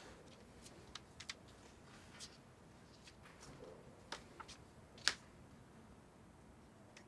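Sheets of paper being turned and handled, with scattered short crackles and small clicks in a quiet room; the loudest crackle comes about five seconds in.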